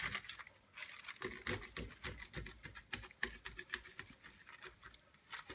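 Kitchen knife tip stabbing vent slits into the plastic film over a frozen-meal tray: a quick, irregular run of light clicks and taps.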